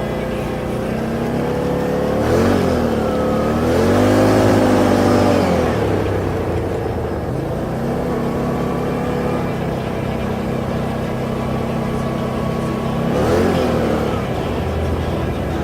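ATV engine running at low revs and revved three times: a quick blip about two seconds in, a longer rise and fall of revs around four to six seconds in, and another quick blip near the end.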